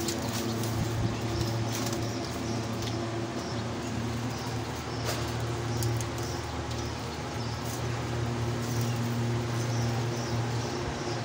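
Rustling of a bunch of fresh leafy fodder and a few light clicks and rattles of wire rabbit cages, over a steady low hum.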